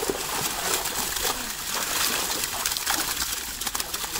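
Water splashing and sloshing as netted fish thrash in the shallow pond, with a flurry of sharper splashes near the end. Low wavering calls recur in the background.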